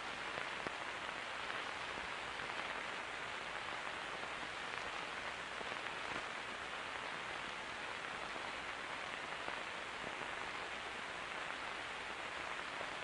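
Steady, even hiss of an old film soundtrack, with no other sound over it.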